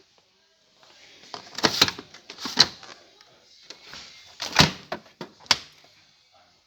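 Appliance doors being shut at a washer and dryer display: a series of sharp thuds and clunks, two close together early on, then a single one, then a loud one followed by two lighter ones.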